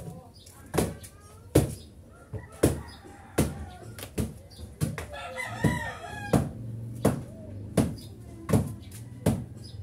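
A rooster crowing once, about four to six seconds in, over a regular series of sharp knocks about every three-quarters of a second.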